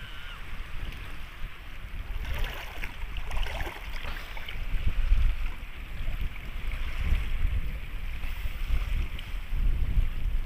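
Wind buffeting the microphone with a low rumble, over the wash of small sea waves.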